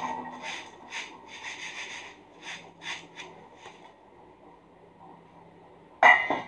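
Dry poha flakes rasping against the wire mesh of a stainless steel sieve as it is shaken in a run of strokes that fade out over the first few seconds, sifting the fine crumbs and dust out of the flakes. Near the end, a short loud ringing clank of steel utensils.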